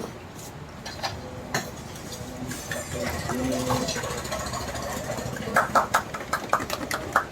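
Scattered clicks and knocks from handling the engine as it is lifted into the motorcycle frame, clustering into a quick run of knocks near the end, over a low background hum.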